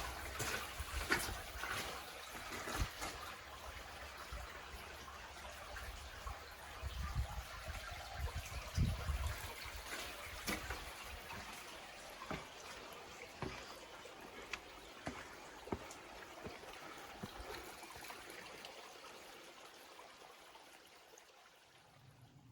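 Running water from a small stream, a steady trickling rush, with scattered light clicks over it; it fades gradually over the last few seconds.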